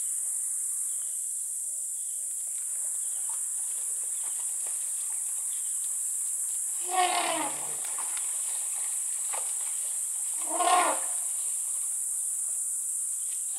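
Two short animal calls, each sliding down in pitch, about seven and ten and a half seconds in, over a steady high-pitched insect drone.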